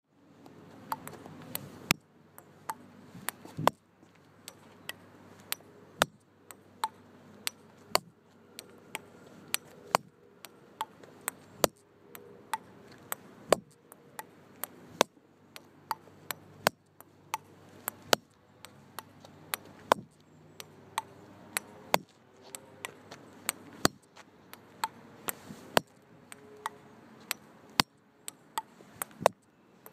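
Table tennis ball in a long, unbroken rally: sharp clicks of the ball striking rubber bats and bouncing on an outdoor table, two or three a second.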